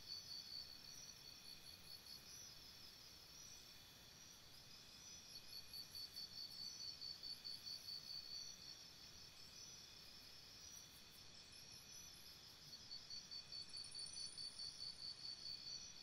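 Faint insect chorus: a high chirp pulsing about five times a second in runs of about three seconds, three times over, with other fainter high chirps and a short trill layered over it.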